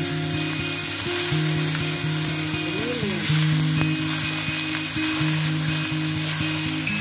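Ground pork sizzling in a hot wok as it is stir-fried, with the spatula scraping and clicking against the pan. Background music plays throughout.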